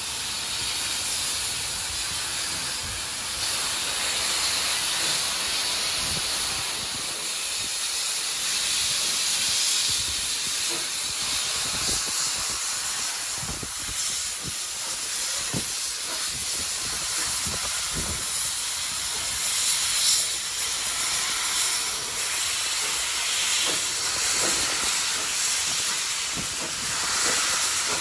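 Steady hiss of steam from the cylinder drain cocks of NSW C38-class steam locomotive 3801 as it pulls slowly away, with scattered low thumps through the hiss.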